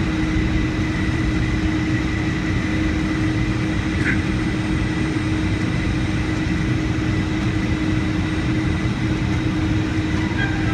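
Steady cabin noise inside a Boeing 757-200 before takeoff: engines running at low power with an even rumble and a constant hum.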